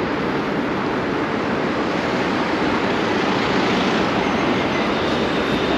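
Steady road traffic noise from the adjacent street, a van passing close by.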